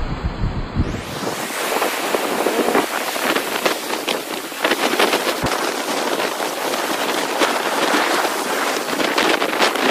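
Rough sea surf breaking and washing over rocks in repeated surges, with a continuous hiss of churning water and spray. Wind rumbles on the microphone for the first second.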